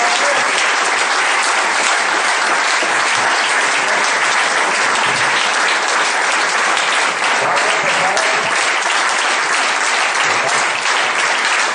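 A hall audience applauding steadily, many hands clapping at once.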